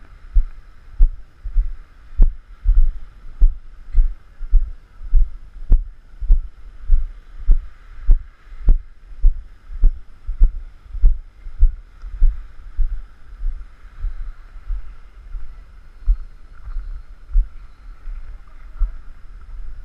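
Walking footsteps on a dirt trail, picked up by a body-worn action camera as regular low thuds, about two a second. They weaken and grow irregular after about twelve seconds, over a faint steady hum.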